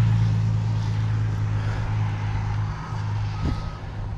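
A heavy vehicle's engine running with a steady low drone that slowly fades. About two-thirds of the way in, its reversing beeper starts, with two high beeps.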